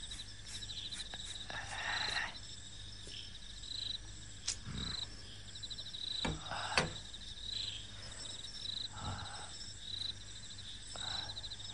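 Crickets chirping in steady rapid trills, with a few soft rustles and several sharp clicks over them.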